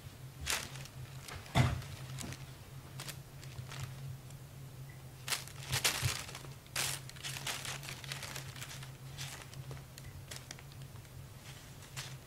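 Thin plastic shopping bag crinkling in short, irregular rustles as a kitten paws and bats at it, with a thump about a second and a half in and a denser run of crinkling around the middle.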